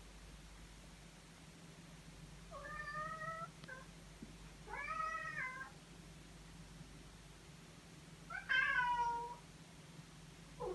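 Kurilian Bobtail cat meowing three times in long, drawn-out moaning calls, the third the loudest, with a short sound near the end. The owner takes this restless night-time moaning for the cat's reaction to the herbal sedative Fitex.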